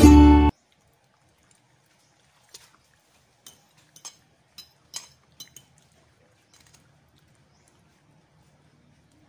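Ukulele music cuts off about half a second in. Then, for a few seconds, comes a run of faint, sharp clicks and taps from dogs eating papaya chunks off a plate.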